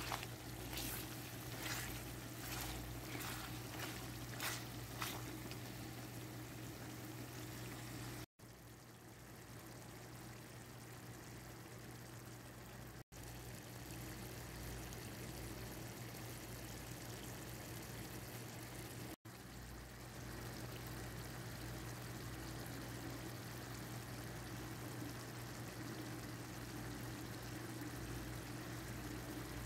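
Mutton curry simmering in a pot: a steady sizzling, bubbling noise over a low constant hum, with a few sharp clicks or pops in the first five seconds. The sound cuts out briefly three times.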